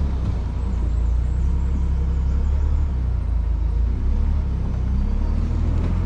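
Sixth-generation Ford Bronco crawling along a dirt trail, its engine running with a steady low rumble.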